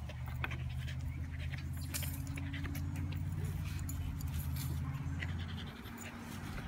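Jingling tags and rustling grass as a small dog in a harness rolls on its back, over a steady low hum that stops about six seconds in.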